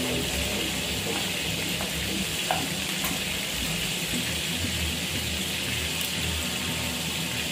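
Chicken frying in a pan of oil with a steady sizzle, browning until crisp, with one brief tap about two and a half seconds in.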